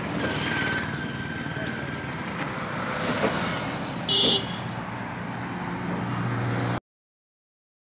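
Street traffic noise with one short vehicle horn beep about four seconds in; the sound stops abruptly near the end.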